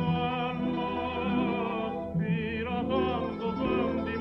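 Background music: an operatic voice singing long held notes with a wide vibrato over a sustained orchestral accompaniment, with a short break between phrases about two seconds in.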